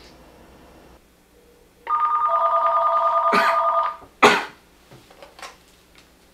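Desk telephone's electronic ringer trilling once for about two seconds, then a sharp clack as the handset is lifted off its cradle.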